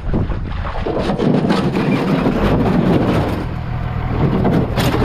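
Aluminum jon boat hull grinding and scraping over gravel as it is pushed along the shore, with a brief sharper scrape near the end. A steady low engine hum runs underneath.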